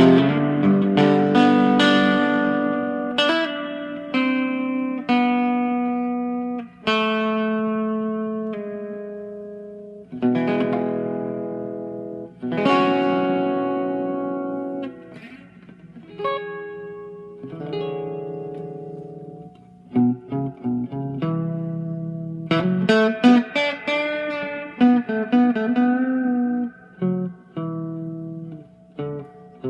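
Rickenbacker 360 electric guitar with flatwound strings, both pickups sounding together through the Rick-O-Sound stereo output into the amps: chords struck and left to ring out and fade one after another, then quicker picked notes and short chords in the last third.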